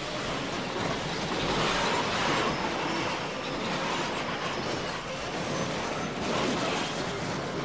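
Film sound effects of an airliner crashing, heard from inside the cabin: a dense, steady rushing and rumbling noise that swells and eases a few times.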